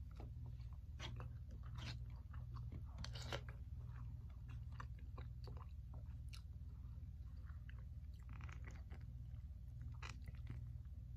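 Close-up chewing and mouth sounds of a person eating chicken and cooked vegetables, with scattered short clicks, over a steady low hum.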